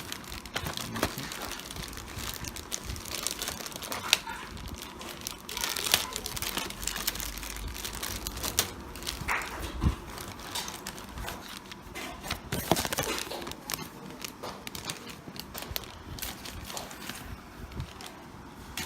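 Plastic packaging crinkling and rustling as a new motherboard is handled, with irregular small clicks and crackles throughout.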